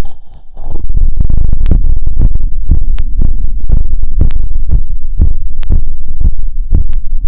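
Human heart beating fast after a 2 km run, heard through a stethoscope: evenly spaced low thumps about two a second over a constant low rumble. The thumping breaks briefly just after the start with a short scratchy noise.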